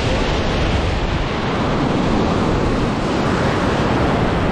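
Ocean surf breaking and washing in white foam over and around rocks, a steady rushing wash.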